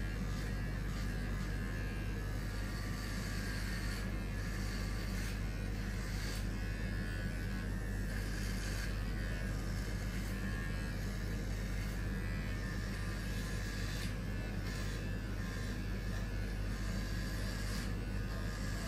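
Electric hair clippers buzzing steadily as they shave a head.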